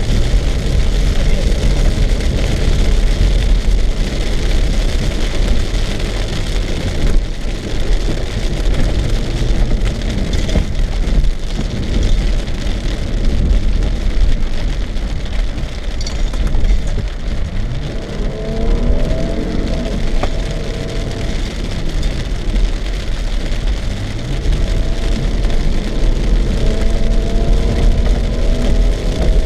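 Car interior noise while driving on a dirt track in rain: the engine and tyres rumble steadily, with rain hitting the windshield. In the second half the engine's pitch rises and falls several times.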